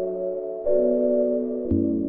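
Soft lullaby background music: slow, sustained chords that change twice, with a low bass note coming in near the end.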